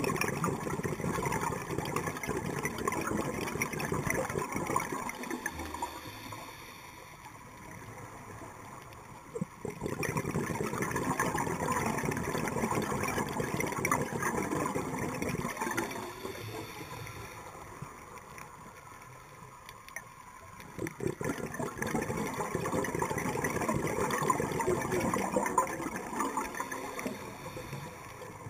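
Scuba diver's exhaled bubbles crackling and gurgling from the regulator underwater, in three long spells about six seconds each, with quieter pauses between them for the in-breaths.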